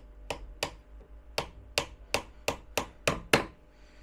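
Hammer driving a nail into a thin wooden slat: about ten sharp blows, three at first, a short pause, then a quicker run of strikes with the last ones loudest.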